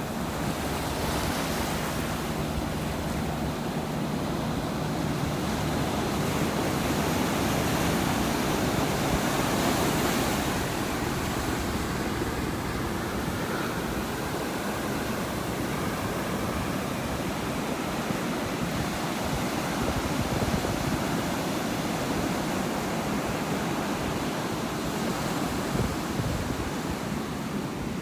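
Ocean surf: a steady wash of waves, swelling to a louder surge around the middle of the first half and easing off, with smaller swells later.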